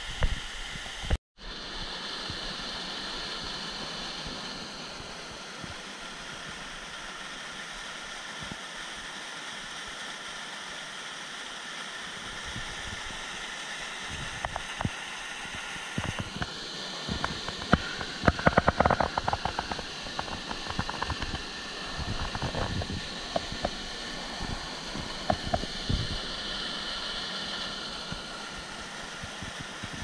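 Waterfall water rushing with a steady hiss. A run of clicks and knocks comes through in the middle.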